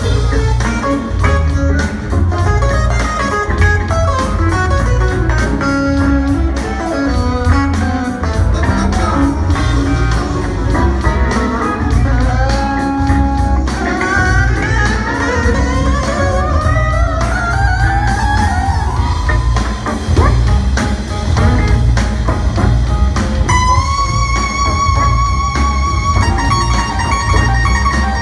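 Live jazz-funk band playing with drums, bass, electric guitar and keytar. Fast runs of notes with rising pitch glides come in the middle, and a held synth chord follows about two-thirds through.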